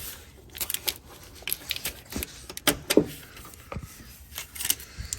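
Irregular plastic clicks and knocks from a licence-plate light housing being pried and popped out of its bumper opening, with a short squeak and the sharpest knocks about three seconds in.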